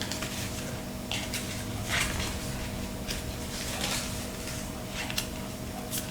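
Scattered rustling and handling noises from items and packaging being moved about, five or six short bursts over a faint steady hum.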